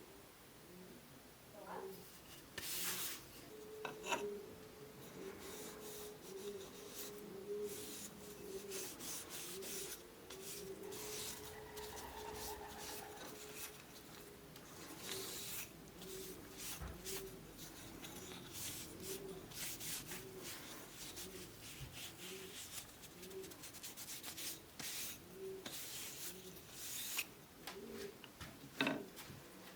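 Hand rubbing and scraping strokes on a workpiece, irregular and uneven, of the kind made by sanding or filing by hand. A faint low tone pulses regularly underneath.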